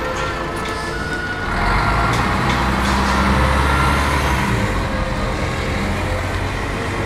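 Low rumble of a heavy engine that swells about a second and a half in, holds, and eases off again, with background music underneath.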